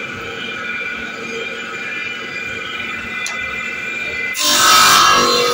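Cutting machine running with a steady whine from its spinning saw blade. About four seconds in the blade bites into the kuka (coquilla nut shell) bead stock with a loud, harsh sawing noise.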